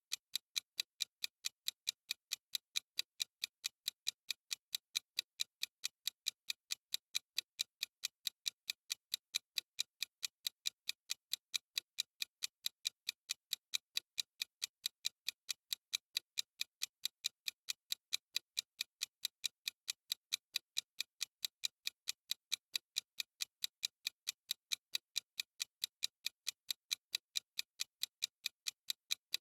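Clock-ticking sound effect of a countdown timer: thin, high, evenly spaced ticks at a steady rate.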